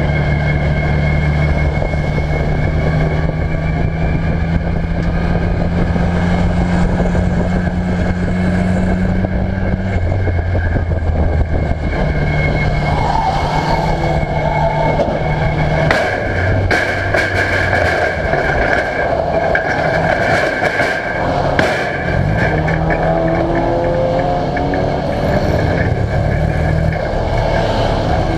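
Ministox race car's engine heard from inside the cockpit, running at steady revs for about ten seconds and then rising and falling in pitch. A run of sharp knocks and rattles comes through partway through.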